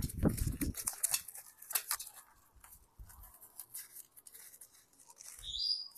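Soft rustling and small clicks of hands working on a young pigeon's wing feathers as the wing is taped or tied shut, with a brief high squeak near the end.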